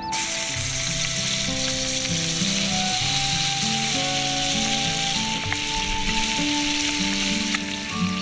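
Oysters frying in garlic oil of butter and olive oil in a pan: a dense, steady sizzle that starts abruptly, with a few small clicks of a utensil.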